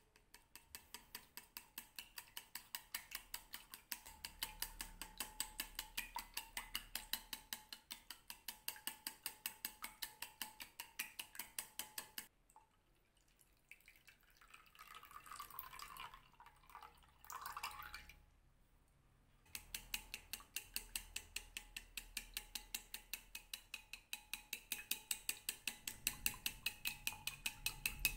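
Wooden chopsticks beating eggs in a ceramic bowl: fast, even clicking of the sticks against the bowl, about five strokes a second. In the middle the beating stops while milk is poured into the eggs, a short splashing pour. Then the beating starts again.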